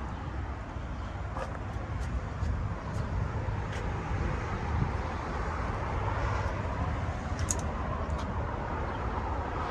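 Steady low rumble of outdoor background noise, with passing road traffic, and a few faint clicks scattered through.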